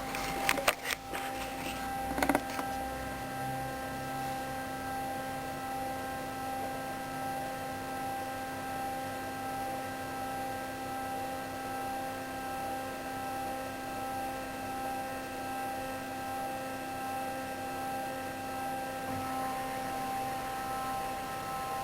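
Stepper motors of a CNC hot-wire foam cutter running, a steady whine of several fixed pitches. A few sharp clicks come in the first couple of seconds, and the pitches shift near the end as the motion changes.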